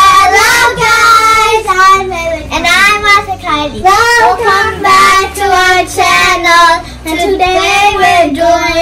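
Children's voices singing a song over a steady low musical accompaniment.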